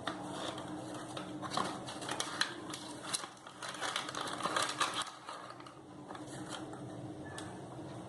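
Faint, scattered clicks and taps of a measuring spoon scooping a quarter teaspoon of baking powder and tipping it into a mug.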